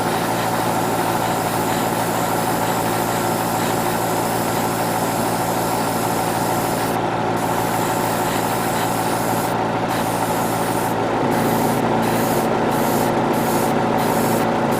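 Hobby spray booth fan running steadily under the hiss of an airbrush spraying paint. Through the second half the spray hiss cuts out briefly again and again, short light passes made by pulsing the trigger.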